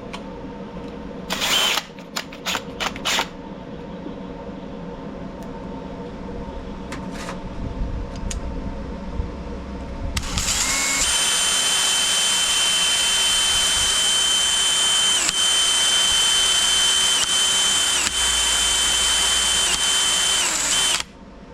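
A few handling clicks, then a small power drill spinning a Q-tip with polishing compound to polish the carburetor's needle seat. It runs steadily for about ten seconds, its pitch dipping briefly several times as it is pressed in, then stops suddenly.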